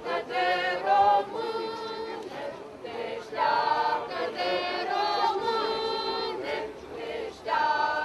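A crowd singing a song together in unison, in phrases of long held notes with short breaks between them.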